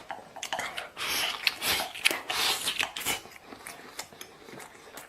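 Close-up sounds of a person chewing a mouthful of rice: a run of short mouth clicks and smacks, busiest in the middle.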